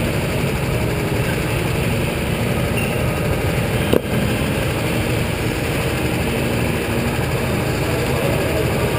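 Steady low rumble and hiss of an indoor go-kart track, heard from a kart waiting in the pit lane, with a single sharp knock about four seconds in.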